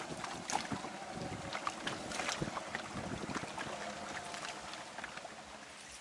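Water splashing and lapping around a paddled bamboo basket boat (coracle), with many small sharp splashes and wind noise on the microphone, easing a little near the end.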